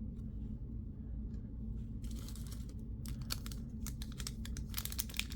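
Trading-card packs and wrappers crinkling and crackling in the hands, starting about two seconds in and growing busier, over a steady low hum.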